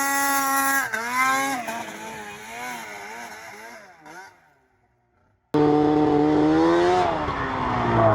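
Snowmobile two-stroke engine revving up and down, its pitch wavering as it fades away to near silence about four and a half seconds in. A second later a sled engine cuts in abruptly, running high and dipping in pitch near the end.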